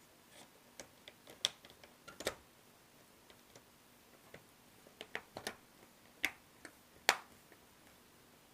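Light plastic clicks and taps from a laptop's screen parts being handled and pressed to snap into place: about ten sharp clicks at uneven intervals, the loudest about seven seconds in.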